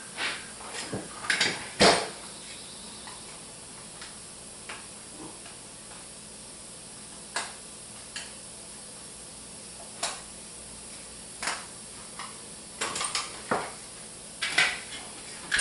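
Caulking gun being handled and readied: scattered sharp clicks and knocks, with a quick run of clicks in the last few seconds.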